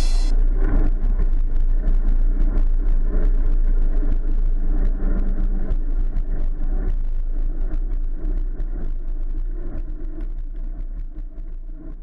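Mountain bike being ridden, heard through a GoPro: a steady low rumble with many small rattles and clicks. It fades away toward the end.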